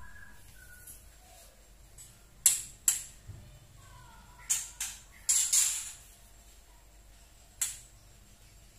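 Juvenile white-rumped shama (trotol) giving harsh, scratchy 'tretekan' chatter calls, the kind used to lure adult shamas. The calls come as short bursts: three pairs a few seconds in and a single one near the end, with a few faint soft chirps between.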